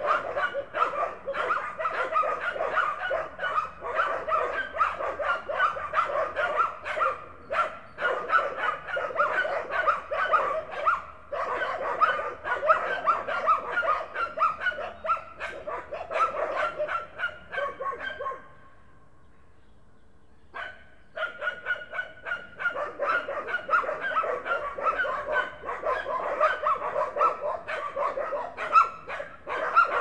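Several dogs barking and yipping, many rapid barks overlapping with no break. The barking drops away for about two and a half seconds near the two-thirds mark, with a single bark in the lull, then starts again.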